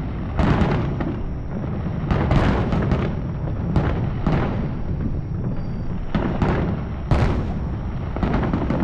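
Fireworks display: aerial shells bursting in quick succession, about a dozen sharp booms with echoing rumble running between them.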